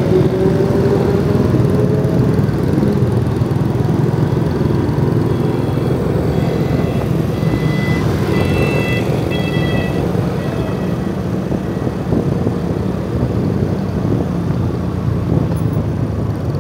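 Steady engine and road-traffic noise heard from a motor scooter riding through city streets. An engine note rises in pitch over the first two seconds. A few short high beeps come around the middle.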